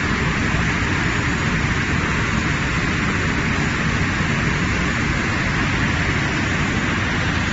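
Fried-snack production line machinery running steadily: a continuous hiss with a low rumble and no distinct knocks or changes.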